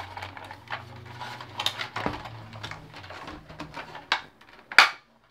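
Plastic shell and parts of a Nerf blaster being handled during disassembly: a run of irregular light clicks and rattles, with a sharp knock near the end.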